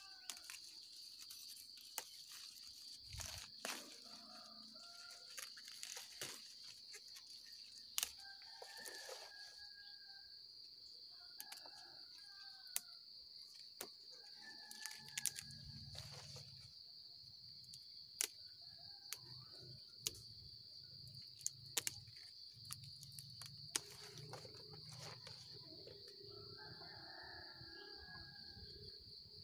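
Faint, steady high-pitched insect drone, with scattered short bird calls and a few light clicks. A low hum comes in about halfway through.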